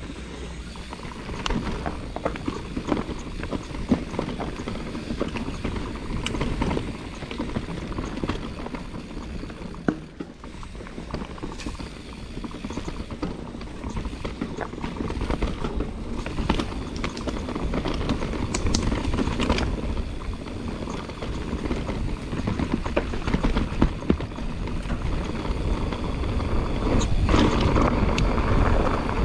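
Mountain bike riding down a dirt trail: tyre noise over rough ground with the bike rattling, and frequent sharp clicks and knocks, growing louder near the end.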